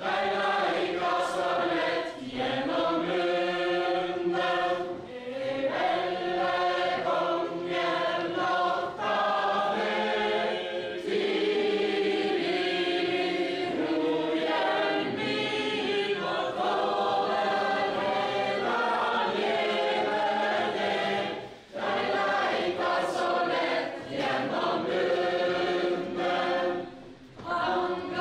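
A group of men's and women's voices singing a Norwegian medieval ballad together without instruments, as dancers sing it for a ring dance, with short breaks between lines.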